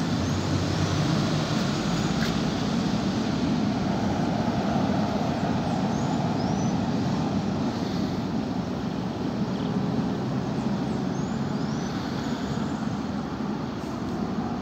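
Steady roar of an Airbus A330neo's Rolls-Royce Trent 7000 engines on final approach, blended with city traffic noise, easing slightly near the end.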